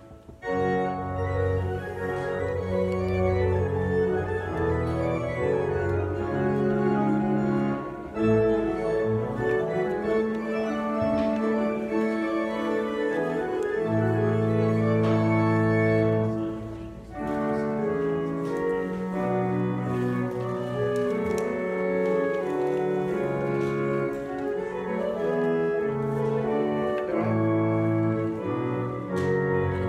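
Organ playing slow, sustained chords, with a brief break in the sound about seventeen seconds in.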